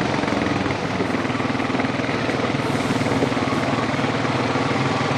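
Off-road vehicle engine running steadily with an even, rapid beat.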